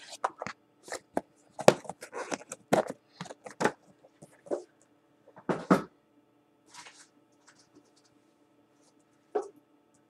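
Cardboard Crayola crayon boxes being picked up and moved by hand: a quick run of knocks, clatters and cardboard scuffs, which thin out after about six seconds to one more knock near the end. A faint steady hum sits underneath.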